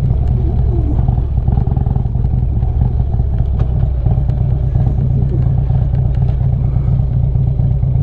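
Harley-Davidson Street Glide's V-twin engine running steadily at low revs, without revving.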